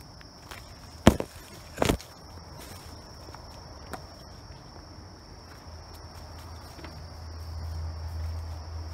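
Steady high-pitched insect chorus, with footsteps through undergrowth and two loud thumps, about one and two seconds in.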